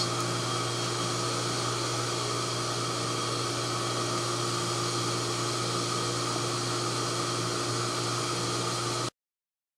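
Steady electrical hum with a fan-like hiss from running equipment, the induction heating setup's workspace, holding level and then cutting off suddenly about nine seconds in.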